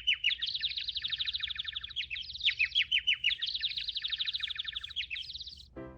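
Bird-like twittering: a fast, unbroken run of short chirps that each slide down in pitch, many per second, in repeating phrases. It cuts off suddenly near the end.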